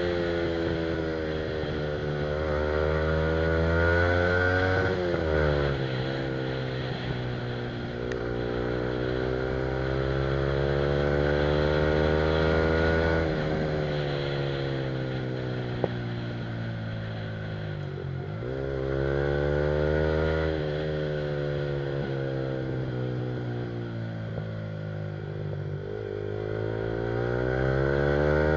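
Yamaha R15's single-cylinder four-stroke engine running through an Akrapovic aftermarket exhaust, heard from the rider's seat on the move. The engine pitch climbs steadily under throttle, then drops sharply and picks up again twice, about five and eighteen seconds in. A steady hiss of wind and tyres runs underneath.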